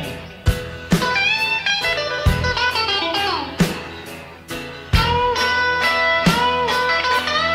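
Blues-rock background music: electric guitar playing lead lines with bent notes over a steady beat. It grows louder about five seconds in.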